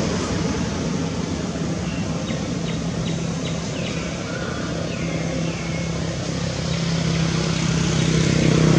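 Steady outdoor background noise with a low motor vehicle engine hum that grows louder toward the end. A few short, high chirps come between about two and five seconds in.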